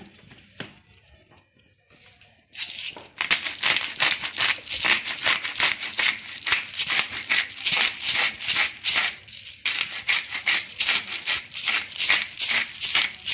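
Spice shaker jar shaken over a bowl of mince: rapid rhythmic rattling of dry seasoning, a few shakes a second, starting about two and a half seconds in with a brief pause around ten seconds in.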